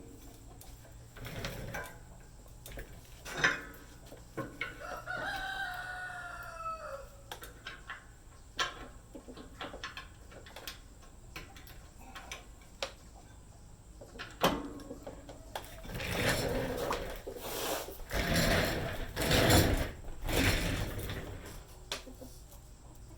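A rooster crows once, a few seconds in, over scattered clicks and knocks of metal parts being handled. Near the end comes a longer, louder stretch of noise.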